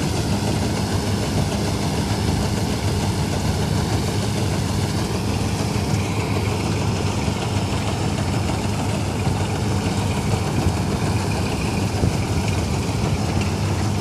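Vintage 1965 Ködel & Böhm Köla Combi Special combine harvester running steadily.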